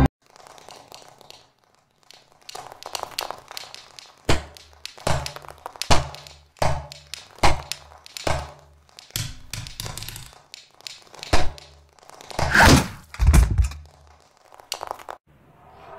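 A run of about a dozen separate thunks, irregularly spaced, each with a low thump. The first comes about four seconds in after a few faint knocks, and a louder cluster falls near the three-quarter mark.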